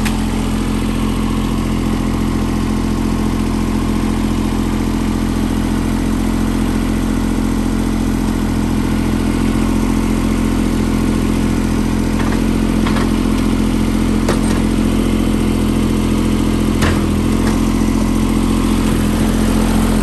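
John Deere X595 garden tractor's engine running steadily, with a few faint clicks in the second half.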